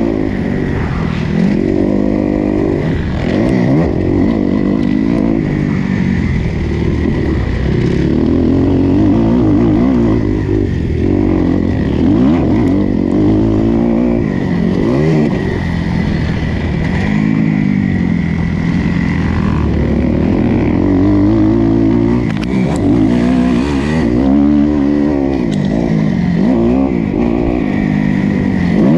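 Motocross bike engine heard up close from a bike-mounted camera. It revs up and down over and over as the rider accelerates, shifts and backs off around the track.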